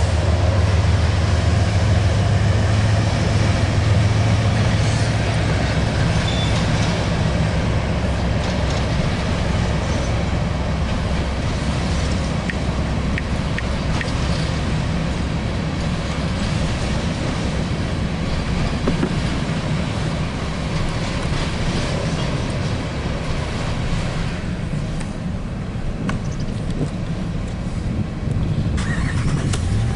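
Union Pacific coal train rolling past, a steady rumble of freight cars on the rails. A low hum in the first few seconds fades out.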